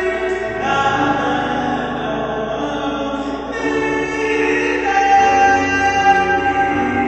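Choral music: voices singing long, held chords that change every second or two.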